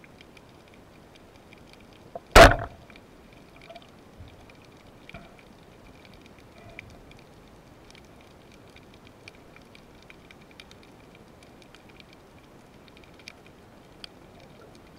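A rubber-band speargun fired underwater: one loud, sharp crack about two and a half seconds in as the bands snap forward and release the shaft. Faint scattered clicks and a low hiss of the water continue under it.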